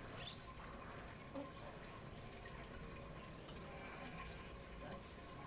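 Faint steady background hiss with no birdsong, and a faint short sound about a second and a half in.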